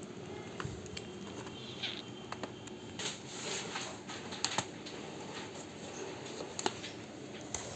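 Irregular light clicks and taps of hands working on a laptop, over a steady low hiss.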